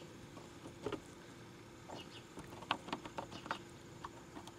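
Faint, irregular small clicks and taps from hands fitting a license plate light housing into the tailgate and starting a screw, with several clicks close together about halfway through.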